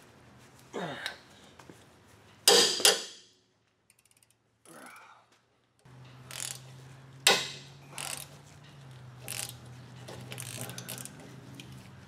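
Steel wrenches clinking and a ratcheting wrench clicking as a sway bar end link nut is worked loose with two wrenches. The clanks come one at a time, the loudest about two and a half seconds in, with a faint steady hum behind them in the second half.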